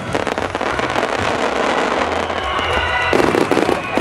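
Aerial fireworks bursting and crackling in rapid succession, with a louder run of bursts about three seconds in.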